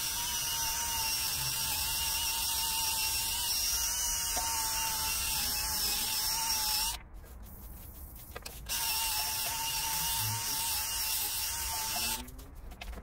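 Small electric power tool running steadily with a high whine and hiss. It stops about seven seconds in, then starts again a couple of seconds later and runs until near the end.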